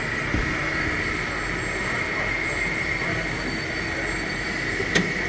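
Steady mechanical din of running machinery in a large hall, with a thin high whine held throughout and a sharp click about five seconds in.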